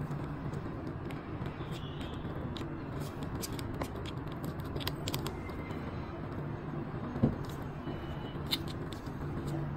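Clear plastic film being lifted and smoothed by gloved hands over an opened phone, giving scattered light crinkles and clicks over a steady low hum, with one sharper knock about seven seconds in.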